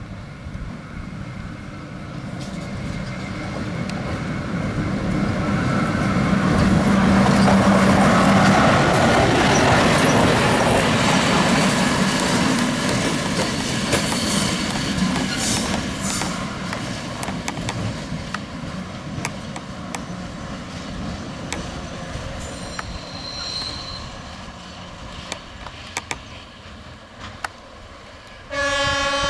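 Diesel engine of a small yellow rail maintenance vehicle running as it approaches along the track, loudest as it passes about eight seconds in, then fading as it pulls away, with its wheels clicking over the rail joints. Near the end a rail horn sounds one steady blast.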